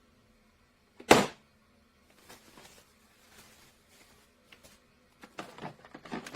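A single sharp knock about a second in, then soft scuffing and a run of clicks and knocks near the end, like hard objects being handled and set down.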